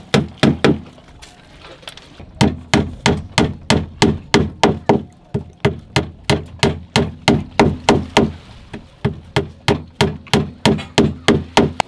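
Hammer driving small nails through a thin wooden strip into a boat's gunwale in sharp, steady blows, about three a second. After the first few blows there is a pause of about a second and a half, then the hammering runs on evenly.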